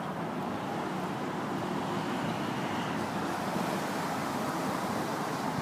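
Steady rushing of a flood-swollen creek running high and fast after a hurricane.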